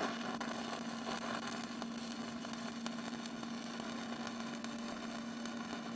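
Stick-welding arc from a 3/32-inch 7018 electrode run at about 85 amps: a steady crackling hiss as the rod burns in, with a steady low hum underneath.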